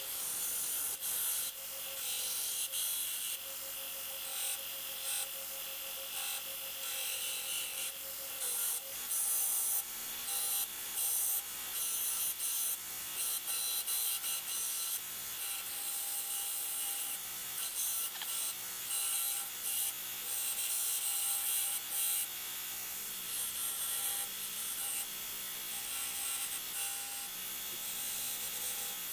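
Belt grinder running with an S35VN stainless steel knife blank pressed edge-on against the belt, a steady grinding hiss that swells each time the steel is pushed into the belt.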